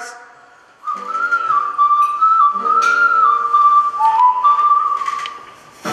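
A whistled melody over soft held chords, starting about a second in and fading near the end.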